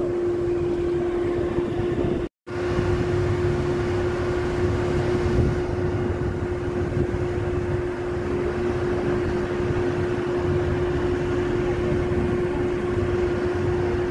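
Motorboat's engine running steadily with a constant hum under rushing wind and water noise. The sound cuts out completely for a moment about two seconds in.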